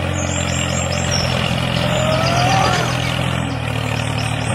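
Tractor engine idling steadily, a low even hum, with a faint rising whine about two seconds in.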